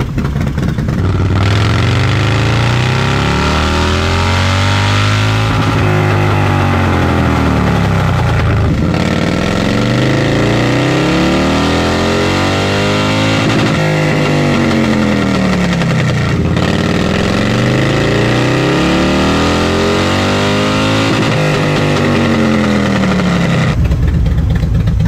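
Harley-Davidson 131ci Milwaukee-Eight V-twin, fitted with an S&S 590 cam, running hard on a chassis dyno. The engine note climbs and falls several times before dropping away near the end. This is a raw, untuned run on the base auto-tune map.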